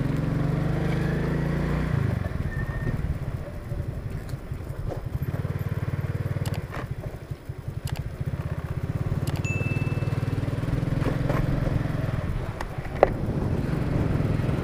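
Motor scooter running while being ridden slowly along a street, its low engine note dipping briefly midway as it eases off, with a few light clicks and knocks.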